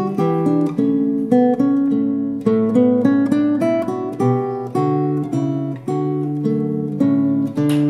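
Background music: acoustic guitar plucking a steady run of notes, several a second.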